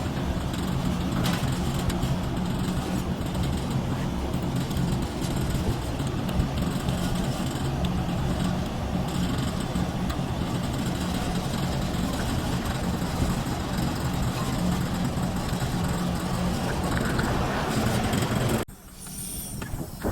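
A steady machine hum with several low steady tones under a constant rushing noise, cutting off abruptly near the end.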